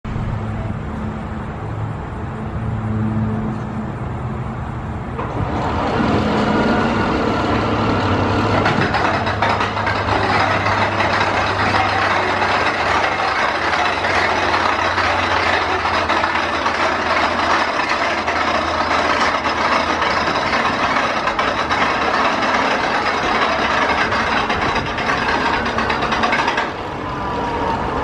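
Zamperla Windstorm steel roller coaster train running along its track: a rumble of wheels on steel rail that builds about five seconds in, grows louder around eight seconds, holds steady and drops away shortly before the end. A steady low hum runs underneath through the first part.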